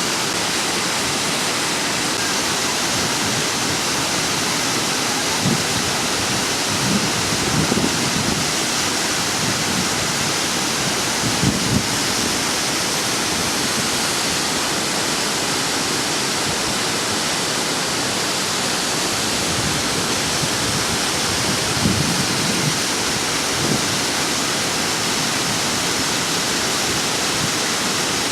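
Storm water rushing down a ravine: a waterfall and stream pouring in a steady, loud rush, with a few brief low thumps.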